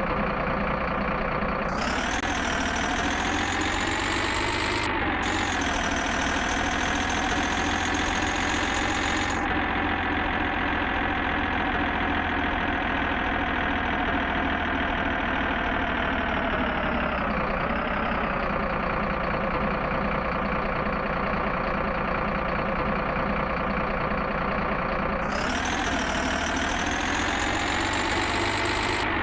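Truck engine idling steadily, its pitch lifting slightly a few times.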